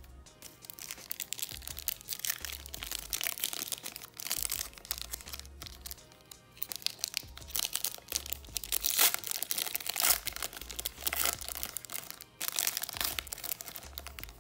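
Foil Pokémon booster-pack wrapper being crinkled and torn open by hand, in irregular crackling bursts, over background music with a low bass line.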